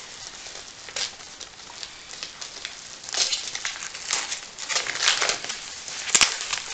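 Plastic mailing bag crinkling and rustling as it is squeezed and pulled at by hand to get it open, in irregular bursts, with a sharp click about six seconds in.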